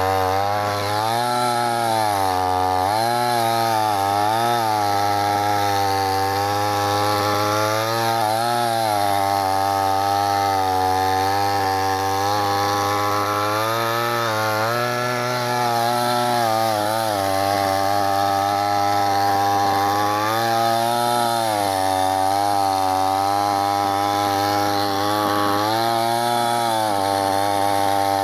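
Chainsaw cutting through wood, the motor running hard with its pitch sagging under load and climbing back again and again as the chain bites and frees.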